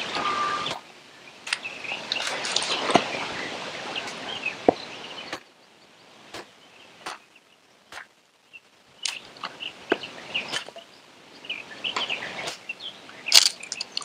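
Small hatchet chopping into quarters of a split pine log, a series of sharp wood knocks at irregular intervals as the core is cut out. Birds chirp in the background.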